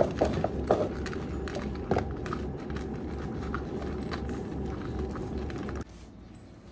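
Close rustling and bumping of a cat's fur against the phone microphone, with scattered small clicks over a low rumble. It drops off abruptly near the end to faint room tone.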